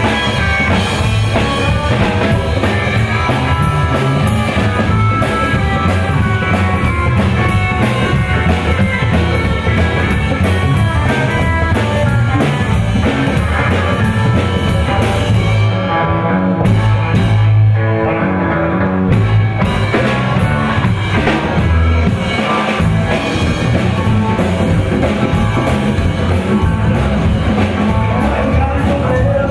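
A live rockabilly band playing: a drum kit, electric guitar and upright bass. About sixteen seconds in, the cymbals drop out for a short break of roughly three seconds, then the full band comes back in.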